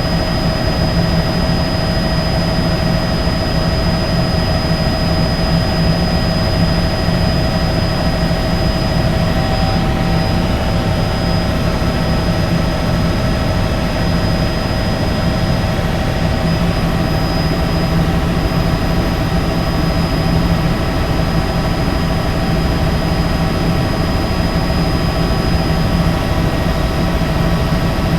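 Helicopter running steadily at a constant level: a dense engine and rotor roar with a steady high turbine whine over it, neither approaching nor fading.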